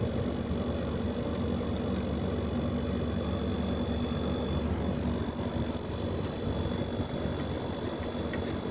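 Split air conditioner running: a steady machine hum from the compressor and fan, with a thin high whine above it.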